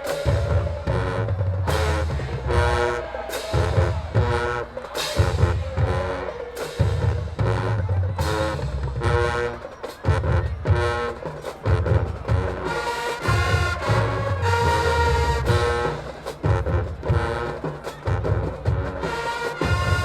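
Marching band playing: brass horns in stacked chords over heavy bass drum hits in a steady beat.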